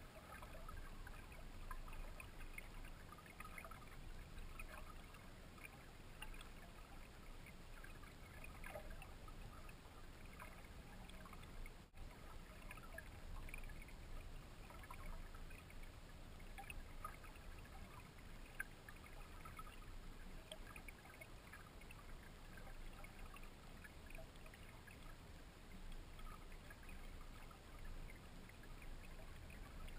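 Faint, steady rush of creek water heard by a submerged camera, with many small scattered ticks and crackles.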